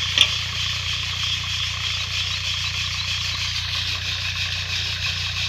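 Wheat grains shaken and rattling in a round hand sieve over a metal basin, a steady grainy hiss with one sharp click just after the start. Under it runs a steady low engine-like hum.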